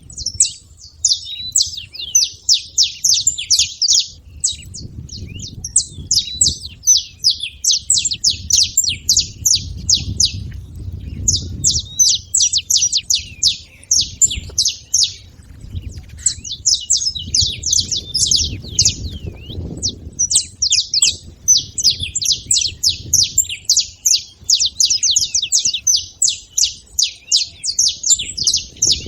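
Saffron finches singing and chirping: quick runs of high, sharp notes in bursts of a few seconds, broken by short pauses, with a low rumble coming and going underneath.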